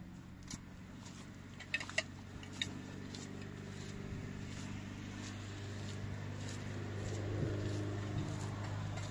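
An engine runs with a steady low hum that grows louder over the second half, with a few sharp clinks about two seconds in.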